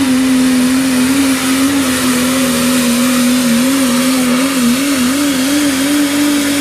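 Super modified 4x4 pulling truck's diesel engine held at high revs under full load as it drags the weight sled, its pitch wavering slightly, with a thin high whine above it.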